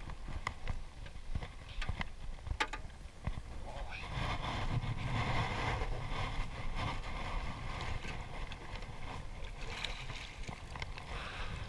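Water splashing as a hooked fish is scooped up in a landing net alongside a small aluminium boat, with a few sharp knocks in the first few seconds and wind on the microphone.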